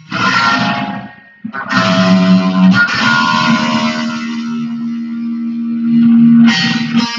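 Jackson electric guitar played through distortion: a chord struck at the start, a brief gap, then a few picked notes leading into one long sustained note held for about four seconds, with a new note struck near the end.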